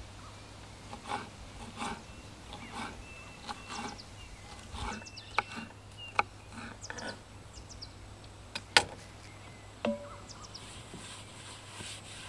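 Kitchen knife chopping green bell pepper on a wooden cutting board: irregular knocks of the blade striking the wood, roughly one or two a second, a few sharper and louder than the rest, the loudest about three-quarters of the way through.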